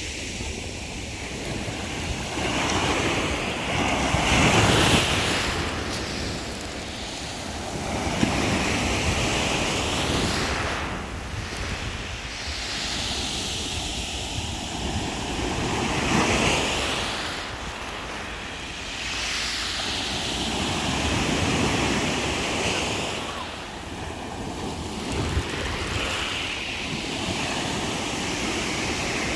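Black Sea waves breaking on the shore, the surf swelling and falling away every four to five seconds, with wind buffeting the microphone.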